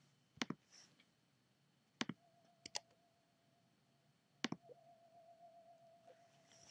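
Faint clicks of a computer mouse, some in quick pairs, a few seconds apart. A faint steady high tone comes in about two seconds in and wavers slightly later on.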